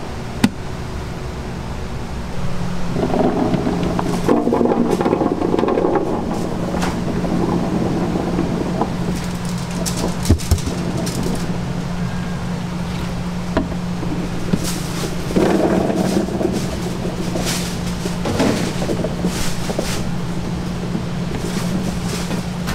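Food-prep handling sounds over a steady machine hum: skewered hot dogs shifted in plastic trays and diced potato cubes tipped from a plastic cutting board into a plastic food bin, rattling and rustling in two louder stretches, with a few sharp clicks.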